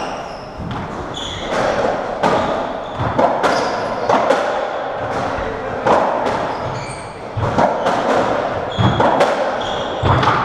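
Racketball rally on a squash court: the ball is struck by rackets and smacks off the walls again and again, each hit echoing around the court, with short high squeaks of shoes on the wooden floor between them.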